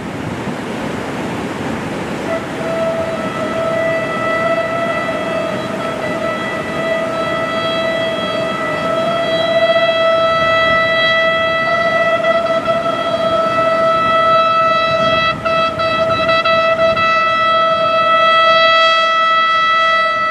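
Diesel shunting locomotive BB 64047 (BB 63500 series) sounding its horn on one steady note. The note comes in about two seconds in and is held unbroken, growing louder as the locomotive approaches, over a low rumble.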